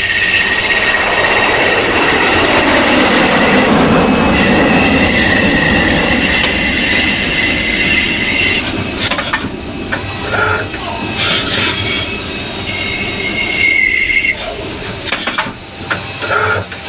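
CNC lathe cutting a thread: a steady high whine over a loud rushing machining noise. After about nine seconds it turns choppy, with clicks and short bursts.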